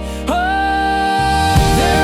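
Worship song: a held sung note that slides up into place, over sustained backing, with bass and plucked notes coming in near the end.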